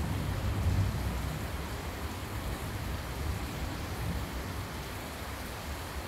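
Steady rain falling, an even continuous hiss, with a low rumble underneath that is strongest in the first second.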